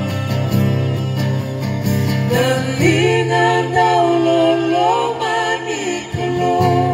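Gospel song with acoustic guitar strumming over a steady low bass; about two and a half seconds in, women's voices come in singing together.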